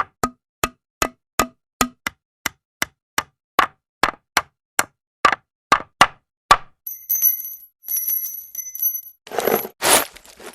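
Tool sound effects played one after another. First comes a steady series of sharp knocks, about two and a half a second, for roughly six and a half seconds. Then a high squealing rasp, and a short noisy scraping burst near the end.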